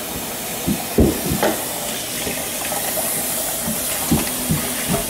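Kitchen faucet running steadily into a stainless steel sink as a pan is rinsed under it, with a few short knocks about a second in and again near the end.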